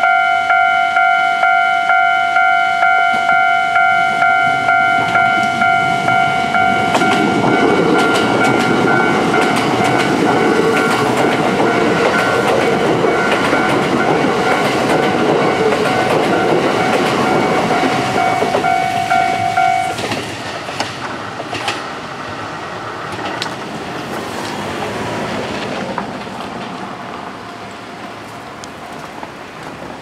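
A Kintetsu 12600 series and 30000 series electric limited express train passes over a level crossing, its wheels clicking over rail joints, while the crossing's warning bell rings about twice a second. The bell stops about twenty seconds in, and the train's rumble fades as it draws away.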